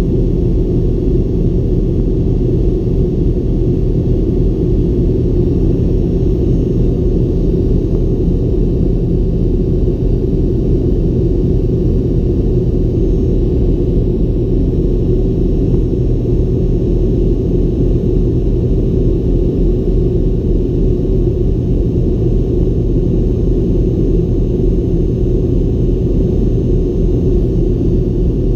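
Steady, unchanging drone of a Fokker 70 jet in flight, heard inside the cabin right beside its rear-mounted Rolls-Royce Tay turbofan. It is a deep engine and airflow noise, with faint steady whines above it.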